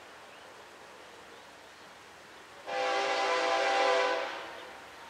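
Florida East Coast Railway freight locomotive's air horn sounding one blast of about a second and a half that fades away.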